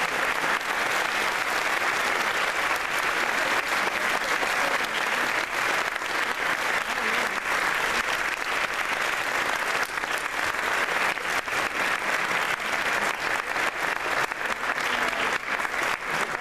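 Audience applauding: many hands clapping in a dense, steady patter that thins to fewer, more separate claps near the end.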